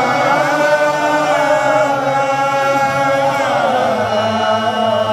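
Men's voices chanting a Mawlid religious chant in Arabic, holding long drawn-out notes with a slow bend in pitch about three and a half seconds in. There are no drum strokes.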